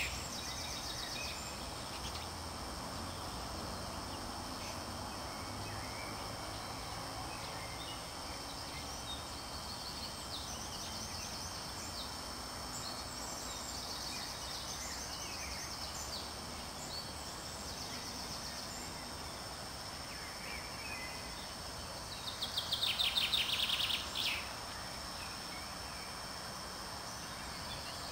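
Small songbirds singing over a steady background hiss. About 22 seconds in, one bird gives a loud, fast trilled phrase lasting about two seconds.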